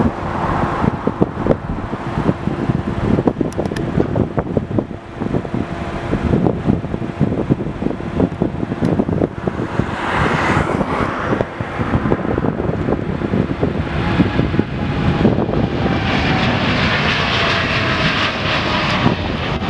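Boeing 787-9 airliner's GEnx-1B turbofans at takeoff power during the takeoff roll, a steady loud rumble that grows brighter in the last few seconds as the jet draws level, with a whine falling slowly in pitch near the end. A road vehicle passes close by about ten seconds in.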